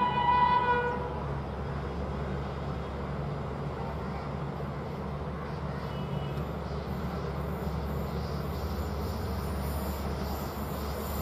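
WAP-7 electric locomotive's horn blaring, cutting off about a second in, then the steady rumble of the oncoming express train, with a brief faint toot partway through. In the last few seconds a high-pitched rattling builds as the train draws near.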